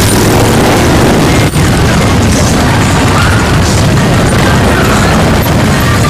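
A stream of motorcycles, mostly big V-twin cruisers and touring bikes, rumbling past at parade pace in a loud, steady mass of engine and exhaust noise, with a brief dropout about a second and a half in.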